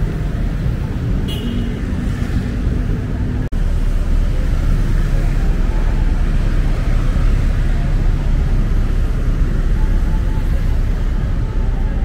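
Heavy city road traffic: a steady, loud rumble of many cars passing close by on a multi-lane road. The sound cuts out for an instant about three and a half seconds in.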